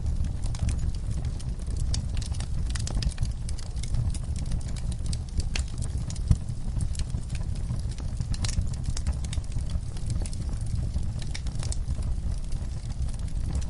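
Campfire burning: a steady low rumble of flames under frequent sharp crackles and pops from the burning wood, with one louder pop about six seconds in.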